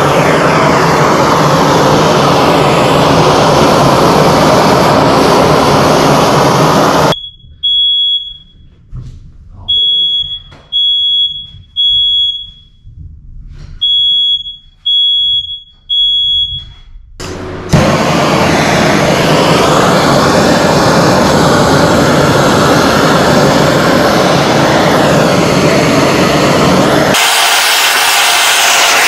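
Handheld gas torch hissing steadily as its flame chars wood boards. The torch cuts off about seven seconds in. In the quiet that follows a smoke alarm sounds: one high beep, then two sets of three beeps about a second apart in the temporal-three alarm pattern. The torch hisses again about seventeen seconds in.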